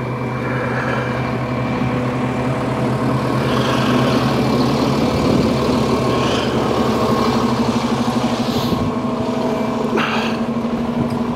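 A bus engine idling steadily, with a low, even hum.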